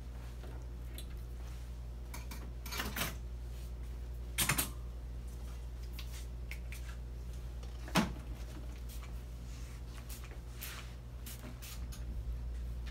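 Small clicks and knocks of hands and items being handled at a grooming table over a steady low hum, with two short noisy bursts a few seconds in and a sharper knock about eight seconds in.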